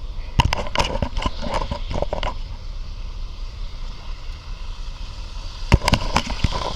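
Rustling and knocks of handling on a body-worn microphone, in two bursts, one about half a second in and one near the end, over a steady low rumble.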